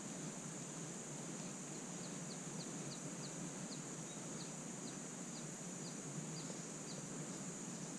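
Faint forest ambience: a bird calls a run of short, high, falling notes, about two a second, starting about two seconds in and stopping near the end, over a steady high insect drone and a low hiss.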